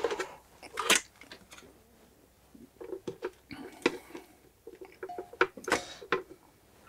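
Small clicks and knocks of a plastic connector and its wires being handled and fitted together by hand, a few sharper clicks among lighter ticks and rattles.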